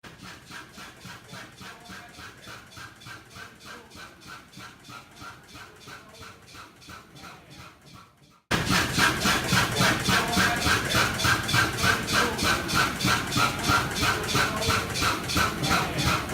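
Bovaird & Seyfang oil field engine running with a steady, even beat of about three exhaust beats a second. The sound jumps much louder a little past halfway.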